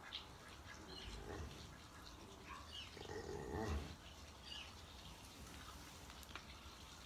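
Cow in labour giving low grunts twice, the second, about three seconds in, the louder. Faint bird chirps now and then.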